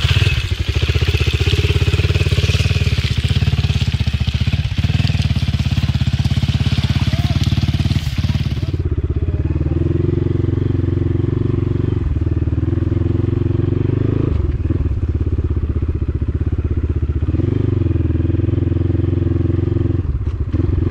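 Dirt bike engine running steadily at low speed through mud, with a high hiss over it that stops abruptly about nine seconds in. After that the engine note swells and eases every few seconds as the throttle is worked.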